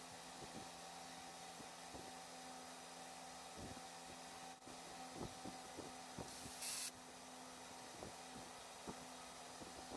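Faint work noises: scattered soft knocks and clicks of parts being handled over a steady low hum, with one short burst of hiss about six seconds in.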